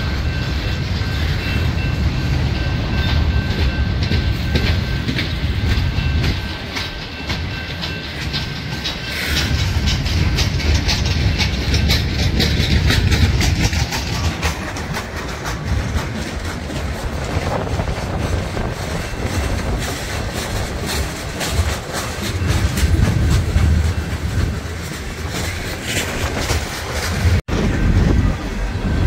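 Train passing close by: a heavy, steady rumble with rapid clicking of wheels over rail joints through most of the middle. The sound cuts out for an instant near the end.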